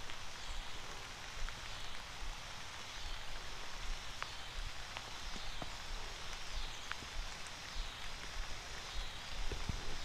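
Steady rain falling on a creek's surface: an even soft hiss with scattered sharp drop ticks.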